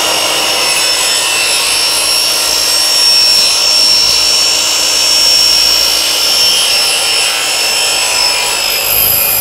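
Mitre saw running at full speed with a steady high whine while its blade cuts down through a black plastic 4-inch dust-hose coupling, splitting it in half.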